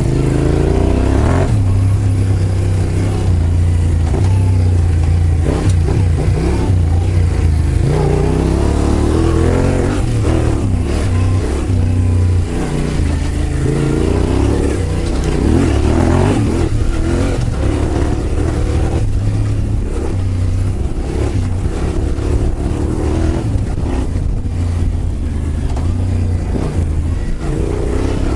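Yamaha Ténéré 700's parallel-twin engine through a Yoshimura full exhaust system, ridden on the move: a deep exhaust note that rises and falls over and over as the bike accelerates and shifts.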